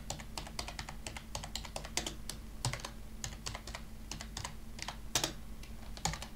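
Typing on a computer keyboard: a quick, uneven run of key clicks, several a second, over a faint steady low hum.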